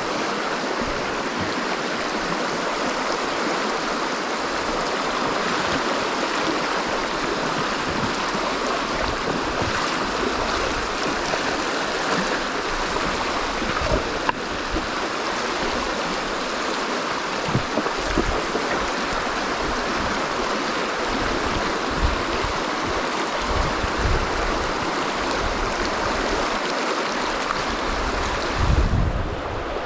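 River water rushing steadily, a constant flowing noise of the current, with a few short low thumps on the microphone, the loudest near the end.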